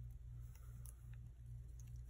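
A few faint, short clicks from hands handling the planner's paper pages, over a steady low hum.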